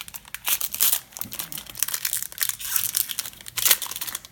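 Foil wrapper of a Magic: The Gathering booster pack crinkling as it is handled and torn open, an uneven crackle with a few louder crunches.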